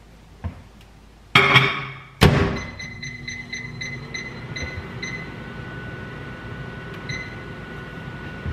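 Over-the-range microwave: a clatter, then a thud as the door is shut about two seconds in, a quick run of keypad beeps as the buttons are pressed, and the oven starts running with a steady hum.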